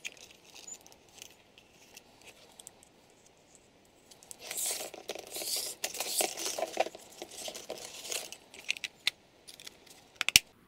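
Rustling and scraping of thin wires being worked through a small plastic LED bulb housing, handled close up. The rustling is densest in the middle, with a few sharp plastic clicks near the end.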